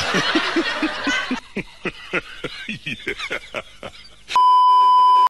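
Edited-in sound effects: a quick string of falling chirps, about three or four a second, then a loud steady beep tone for about a second that cuts off abruptly.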